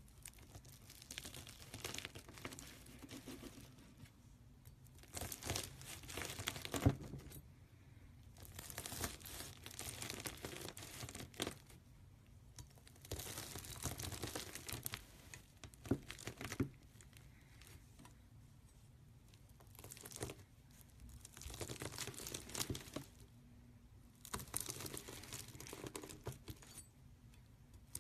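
Bead-filled crunchy slime crackling as a knife blade is pressed and drawn through it. The crackle comes in about six passes of a few seconds each, with short pauses between.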